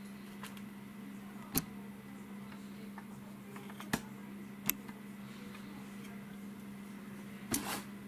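A steady low hum with a few sharp clicks and knocks, the last two close together near the end.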